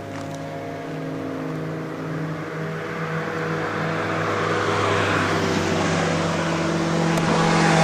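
Two-stroke scooter engine running at a steady high pitch while riding, under a rush of wind and road noise that grows steadily louder.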